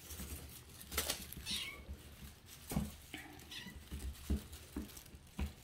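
Lilac point Siamese kitten giving two faint, high mews that slide downward, about one and a half and three and a half seconds in, among soft thumps as it pounces on a feather wand toy.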